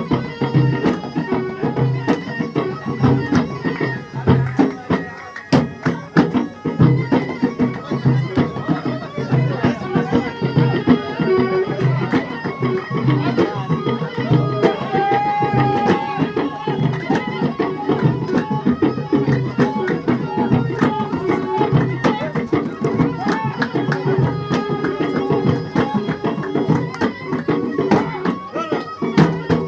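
Traditional Middle Eastern folk music: hand drums beat a steady, fast rhythm under a sustained melody line.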